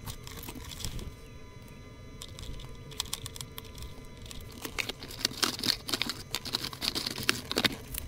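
Small clicks, taps and crackles of a circuit board and plastic casing parts being handled on a wooden bench while a capacitor is desoldered from the board with a soldering iron. The clicking is sparse at first and comes thick and fast in the second half.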